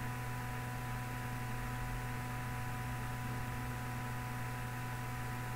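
Steady electrical hum with a faint hiss and two thin high tones underneath: the recording's background noise, with no other sound.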